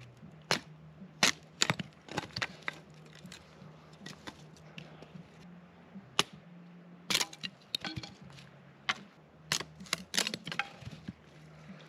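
Thin pieces of firewood being cut and split into kindling: irregular sharp cracks and snaps of wood, with a few seconds' lull in the middle.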